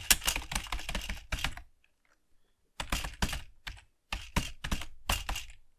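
Typing on a computer keyboard: a quick run of keystrokes, a pause of about a second, then two more runs of rapid key clicks.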